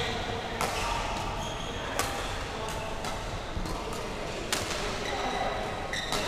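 Badminton rackets striking a shuttlecock in a rally: about four sharp cracks, roughly a second and a half apart, echoing in a large hall, with brief squeaks of court shoes near the end.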